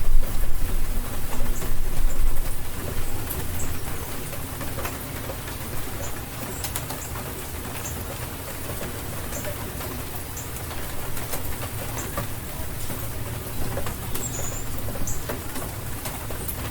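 Steady rain falling, with scattered drips and ticks. A low rumble fills the first few seconds and then fades. A few short, high bird chirps come through the rain.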